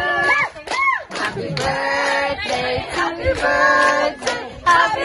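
Singing with music: held sung notes in short phrases, with one voice swooping up and down in pitch near the start.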